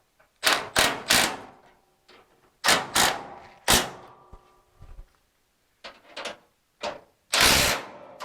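Impact wrench tightening bolts on a car's radiator core support bracket: a series of short loud bursts, then a longer burst near the end.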